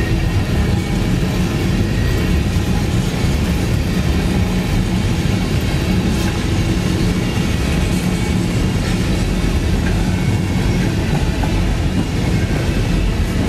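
Tank cars of a crude oil freight train rolling past at close range: a steady rumble of steel wheels on the rails, with occasional clicks over the rail joints.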